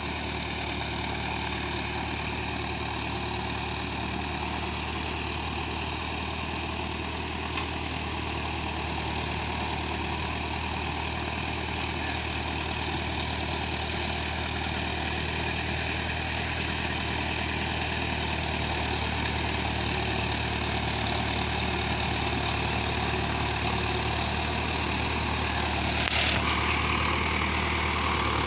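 An engine idling steadily, with a brighter hiss coming in near the end.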